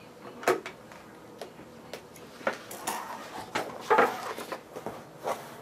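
Vinyl upholstery panels being handled and shifted across a sewing table: scattered light knocks and clicks at irregular times with soft rustling.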